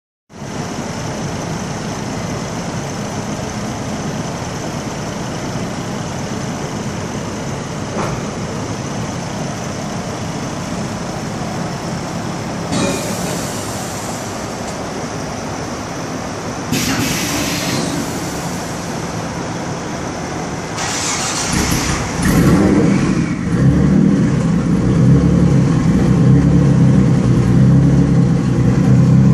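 Mitsubishi 3000GT VR-4's twin-turbo V6 running on a chassis dyno, heard from behind the exhaust. It runs steadily with three short bursts of hiss, then about 22 seconds in steps up to a louder, deeper, steady running.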